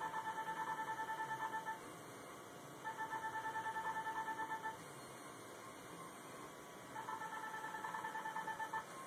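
Ulthera ultrasound skin-tightening system beeping in three runs of rapid electronic beeps, about nine a second, each run lasting just under two seconds. Each run marks a line of focused ultrasound pulses being fired from the transducer.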